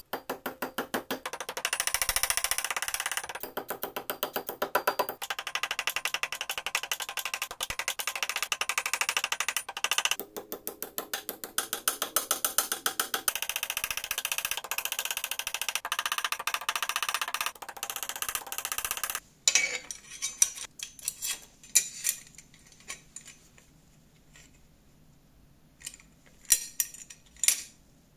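Rapid, regular hammer taps on a thin pressed-steel toy part clamped in a steel bench vise. About two-thirds of the way through they stop, leaving a few scattered light clicks and knocks.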